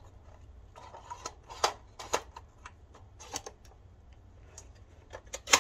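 Irregular plastic clicks and taps from a car centre-console cassette holder being handled, with the loudest knock near the end.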